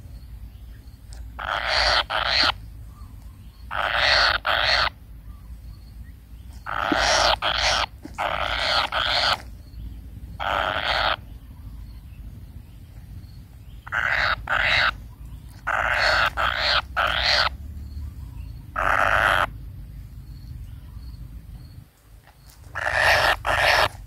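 Kingfisher nestlings giving harsh, raspy begging calls, each under a second long, repeated in irregular bouts with pauses of a second or more between them.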